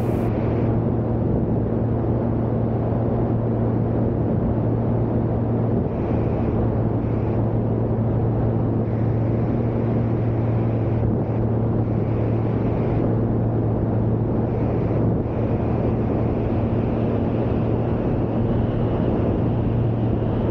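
Van's RV-series light aircraft's piston engine and propeller droning steadily in cruise flight, a low, even hum that holds its pitch throughout.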